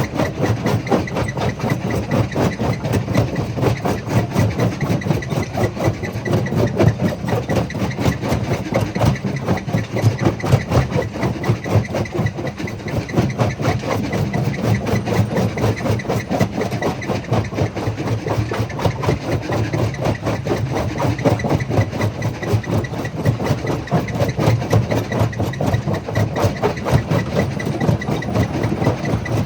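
Jaw crusher running steadily, with a rapid, even pulsing and a deep hum from its drive.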